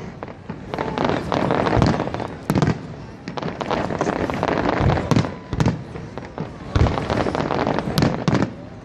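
Aerial fireworks bursting: an irregular series of sharp bangs, some with a deeper boom, over continuous crackling.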